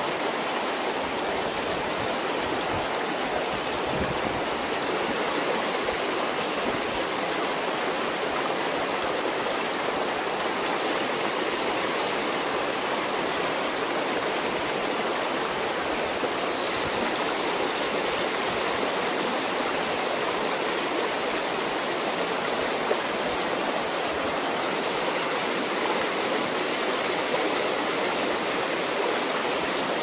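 Mountain river rushing steadily over boulders and through shallow rapids.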